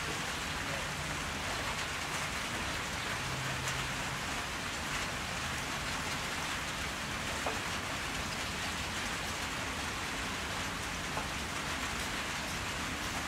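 Steady, even hiss of noise with a few faint ticks now and then.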